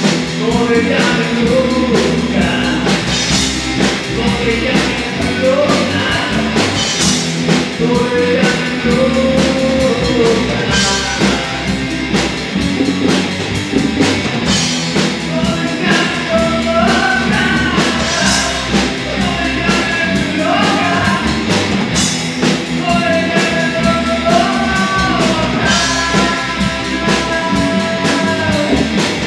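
Rock song playing: drum kit and guitars under a melody line of held notes that slide from one pitch to the next.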